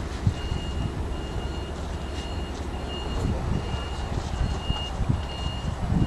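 A high electronic beep repeating evenly, a bit under twice a second, over a low, uneven rumble.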